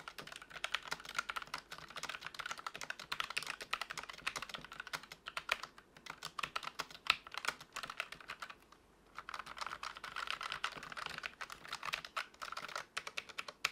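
Typing on a Logitech MX Mechanical keyboard with brown MX Tactile Quiet switches: a fast, dense stream of soft key clicks, with a short pause a little before nine seconds in.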